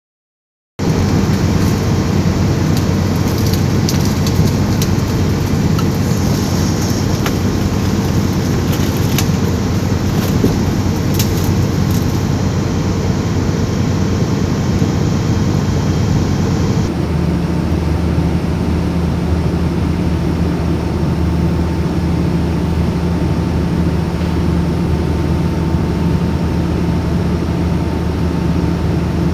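Bulldozer's diesel engine running steadily under load while towing up a slope, with a few sharp clicks in the first half and an abrupt change in its tone about seventeen seconds in.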